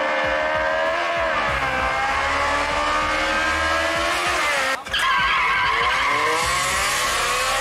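A car's tyres squealing in a long skid over its running engine, the pitch wavering slowly up and down, with a brief break about five seconds in.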